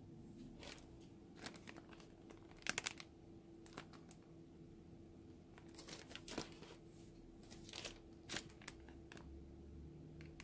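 Filled plastic piping bags crinkling as they are handled: scattered soft crackles, with a quick cluster about three seconds in the loudest, over a faint steady hum.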